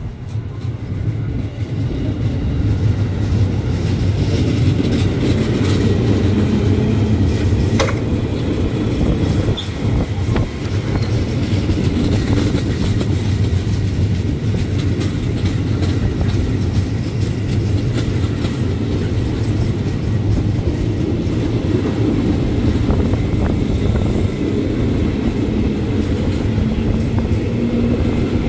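JR 205 series electric commuter train running close past, with a heavy rumble and wheels clicking over the rail joints. The motor hum rises in pitch near the end as the train picks up speed.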